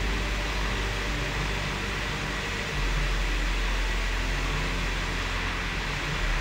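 Old water-driven turbine-generator sets running in a power-station machine hall: a steady whirring rush with a strong low hum underneath, which grows a little louder about three seconds in.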